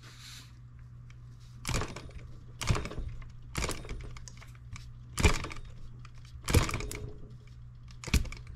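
Irregular clicks and clatters, about six of them spaced a second or so apart, as hands handle the fittings and rubber fuel hose of a miniature brass model engine that is not running. A low steady hum runs underneath.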